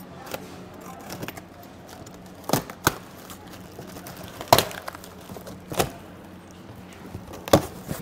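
A sealed cardboard shipping carton being opened by hand: the seal tape is worked loose and the flaps pulled open, with about five sharp, brief cracks and knocks of cardboard and tape spread through it, the loudest about halfway through.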